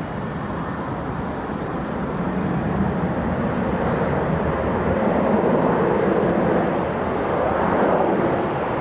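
Aircraft flying past, its engine noise a steady rushing sound that grows louder through the first half and stays loud to the end.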